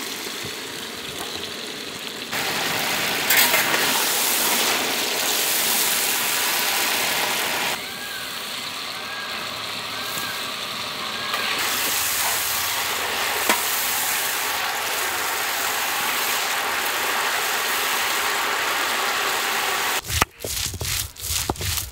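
Brinjals (eggplants) frying in a large pan of hot oil: a steady sizzling hiss that jumps in level a few times where the footage is cut.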